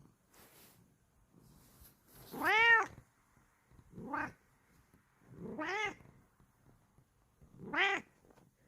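Bengal cat meowing loudly four times, each call rising then falling in pitch, the first one the loudest, answering its owner's calls.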